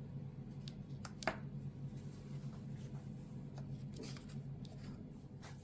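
Faint handling sounds as the inner tube and repair materials are moved: light clicks and rustles, the sharpest about a second in, over a steady low hum.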